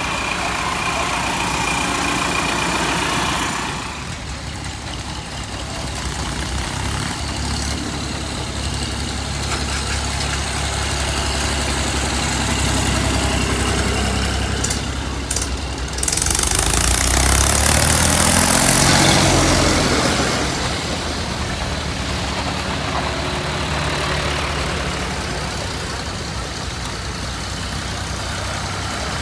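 Vintage tractor engines running at low speed as tractors drive past one after another on a dirt track. One passes close by about two-thirds of the way through, rising in loudness and shifting in pitch as it goes by.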